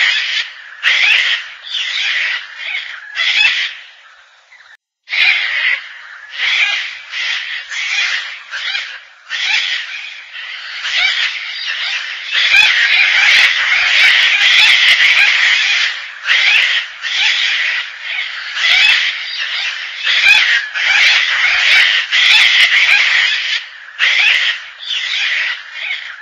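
Gang-gang cockatoo calling over and over with harsh, rasping creaks, with a short pause about four seconds in and an unbroken run of calls around the middle.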